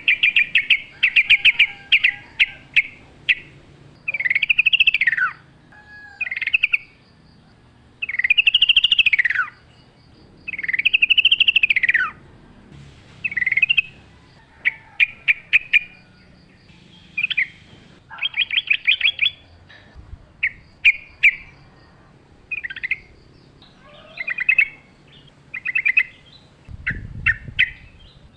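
Yellow-vented bulbul (trucukan) singing in the wild: a run of short bubbly, chattering phrases and three longer warbles that rise and fall in pitch, with short pauses between phrases.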